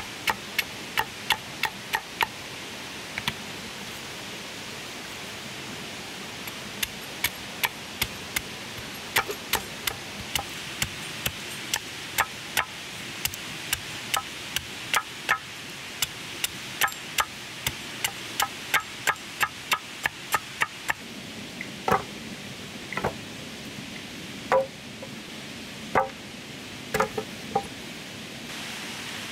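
Repeated sharp knocks, like chopping or hammering, over a steady hiss. The knocks come quickly, two to four a second, with a pause of a few seconds near the start, then slow to a few louder, separate blows near the end.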